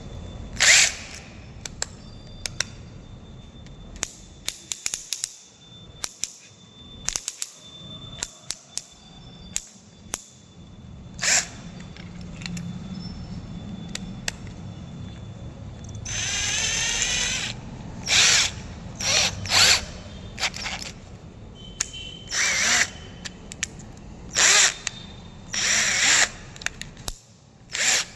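Electric screw drill run in short bursts, with one longer run of about a second and a half in the middle that whines and wavers in pitch. Clicks and light handling knocks fall between the runs.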